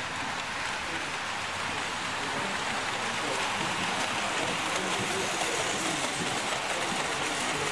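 Hornby tinplate model train running along tinplate track, a steady, even running noise of its wheels on the rails.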